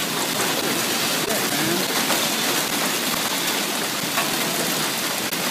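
Golf-ball-sized hail and heavy rain pelting pavement and parked cars: a dense, steady hiss with a couple of sharp knocks of hailstones striking.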